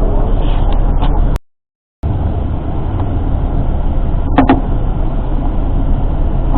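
Steady low rumble of a tour bus running, heard from inside the cabin. It cuts to silence for about half a second about a second and a half in.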